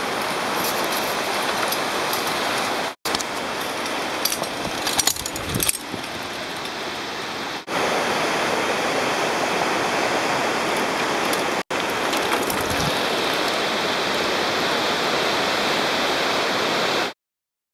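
Steady rushing outdoor noise, broken by abrupt cuts three times, with a short patch of faint clicks and rattles about four to six seconds in.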